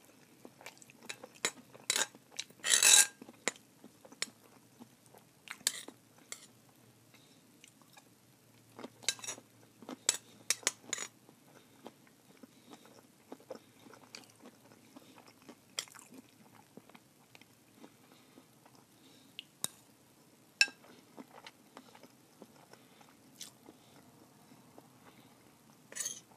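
Close-miked chewing of a vegetable stir-fry, with short, sharp clicks of a spoon against a bowl scattered throughout. The loudest sound is a half-second burst about three seconds in.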